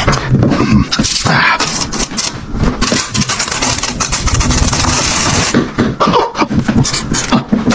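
Loud, rapid mouth-made noises in the manner of beatboxing, with a steady breathy hiss from about three to five and a half seconds in.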